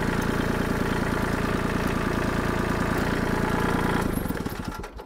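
Kubota L2501 tractor's three-cylinder diesel engine running steadily. About four seconds in it is shut off, and its firing slows and dies away within about a second.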